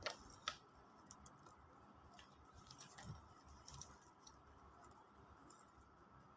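Near silence, with a few faint, scattered clicks and light rustles from a sling bag being handled.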